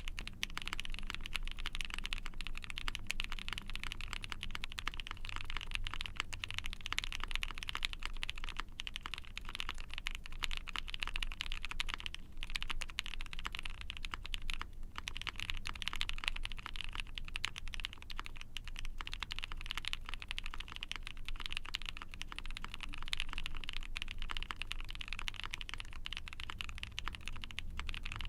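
Continuous, fast typing on a mechanical keyboard fitted with factory-lubed, all-nylon Tofu linear switches, mostly the 13.6 mm-stem version. The keyboard is an ai03 Vega with a POM plate, case and plate foam, and GMK keycaps. The keystrokes form a steady run of clacks, with a couple of short pauses near the middle.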